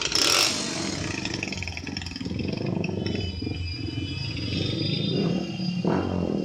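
A large bus's diesel engine running with a steady low drone as it goes by, after a short loud burst of hiss at the start.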